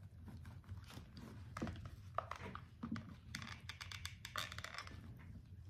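Faint handling noises of craft work on a papier-mâché hat: scattered light clicks, taps and short rustles as trim is pressed and adjusted into hot glue, more of them in the second half.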